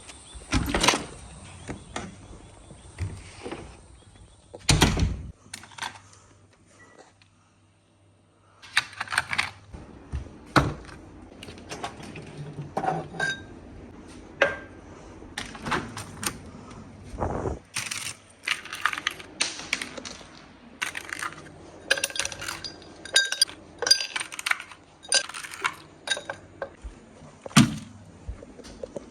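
Irregular clinks, clicks and knocks of hard objects being handled, with a quieter pause about a quarter of the way in.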